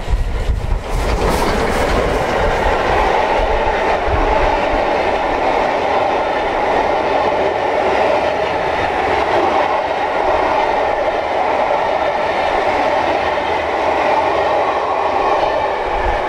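A train passing close by, its wheels running steadily on the rails; the sound builds about a second in and stays loud.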